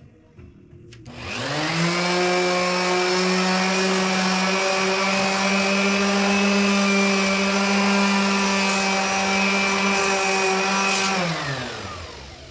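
Electric power tool motor spinning up about a second in, running at a steady pitch for about ten seconds, then winding down near the end.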